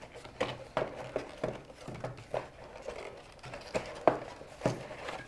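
Hands rummaging through a camera's retail box and its packaging: a run of irregular light knocks and taps as items are moved around, the sharpest a little after four seconds in.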